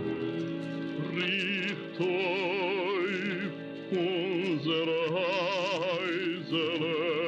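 Archival recording of an operatic male voice singing an aria in sustained phrases with wide vibrato, over accompaniment.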